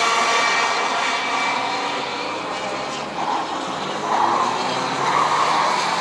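Several 125cc two-stroke racing kart engines running at high revs on track, a high buzzing pack of engine notes. From about three seconds in, a nearer kart's note swells and wavers louder.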